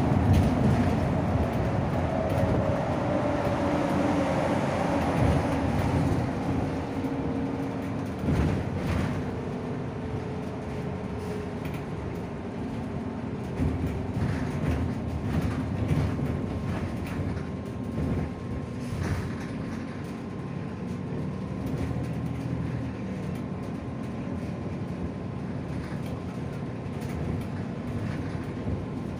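Interior running noise of a SOR NS 12 city bus on the move: drivetrain and road rumble with a whine that falls in pitch over the first several seconds as the bus slows, the overall noise easing off. Occasional knocks and rattles from the body.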